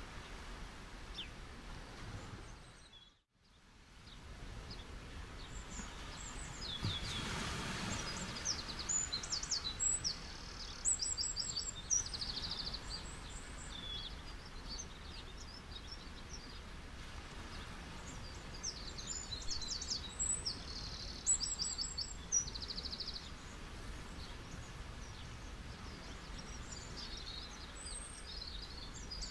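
Small birds chirping in quick repeated trills over a steady background hiss. The sound dips out briefly about three seconds in, and a broad swell of noise rises around seven seconds.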